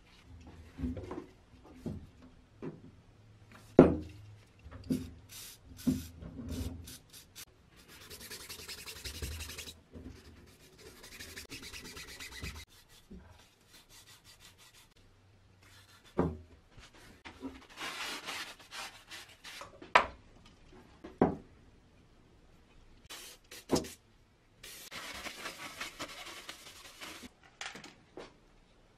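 Green abrasive pad scrubbing the bench grinder's motor rotor shaft to clean off rust, in four bouts of a second or two. Sharp knocks come between them as the metal parts are handled on the wooden bench, the loudest about four seconds in.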